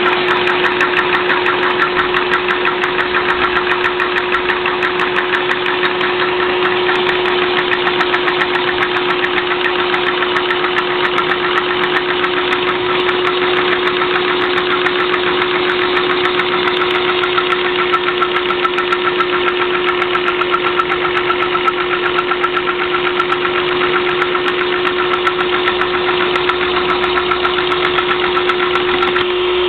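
Vacuum cleaner motor running with a steady whine, its suction driving a Lego single-cylinder vacuum engine whose plastic piston and crankshaft clack rapidly and evenly as the flywheel spins.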